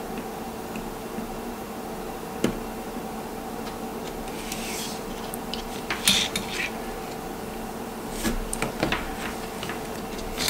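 Scattered light clicks and taps from handling a small plastic N scale turnout and hookup wire on cardboard, with a brief hiss about four and a half seconds in, over a steady low hum.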